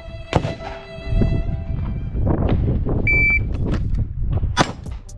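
Background music over wind buffeting the microphone. A shot timer beeps once about three seconds in, and a pistol shot cracks about a second and a half later.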